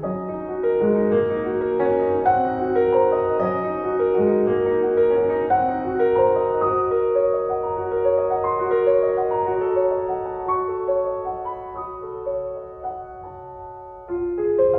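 Background piano music, a melody of held notes that change about every half second.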